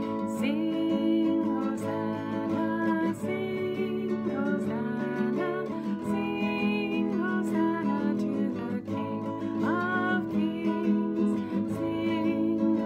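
A woman singing a sing-along hymn while strumming chords on a nylon-string classical guitar.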